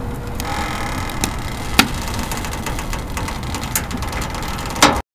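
Firewood burning inside a homemade stainless-steel wood stove: a steady low rumble of the fire with a few sharp crackles and pops from the wood, the loudest near the end. The sound cuts off abruptly just before the end.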